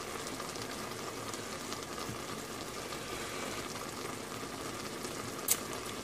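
Vinegar and black bean sauce simmering in a metal pan around fried milkfish, a steady bubbling hiss with a fine crackle. One sharp click about five and a half seconds in.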